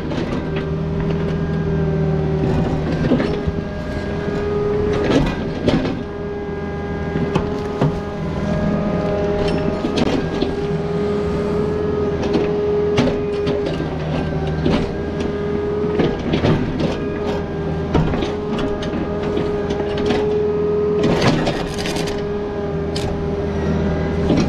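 Takeuchi mini excavator digging a trench in rocky soil: the engine and hydraulics run steadily under load with a constant whine, and the steel bucket clanks and scrapes against rock and dirt many times over.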